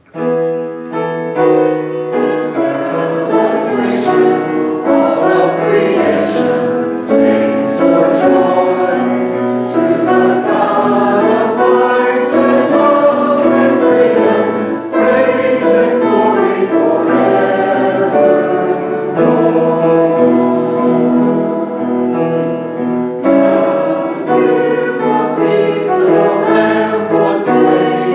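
Church congregation and choir singing a hymn with instrumental accompaniment, the music starting abruptly at the beginning and going on steadily.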